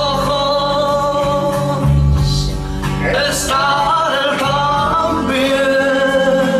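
Male singer holding long, drawn-out notes into a microphone over instrumental backing music, amplified through loudspeakers; three held notes, with breaks about three and five seconds in.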